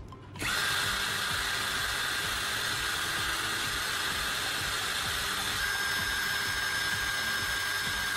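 Cordless drill running at steady speed, spinning a carbon rod from a dry-cell battery against hand-held sandpaper to grind it to a point. It spins up about half a second in, then runs with a steady whine over the gritty rasp of the sanding.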